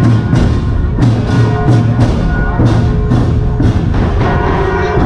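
Drum-led music: drums beating a steady rhythm of about three strokes a second over sustained pitched instrument notes.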